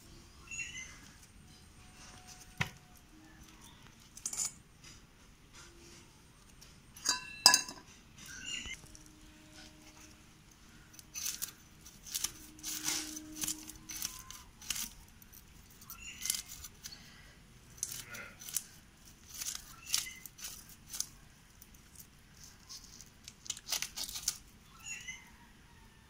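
Fish scales being scraped off a small river fish against the blade of a boti, a fixed curved cutting blade: a run of quick, sharp rasping strokes, scattered at first and close together in the second half.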